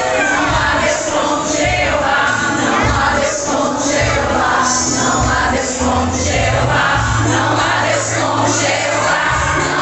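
Choir singing a gospel song with instrumental backing. Held bass notes change every second or so beneath the voices.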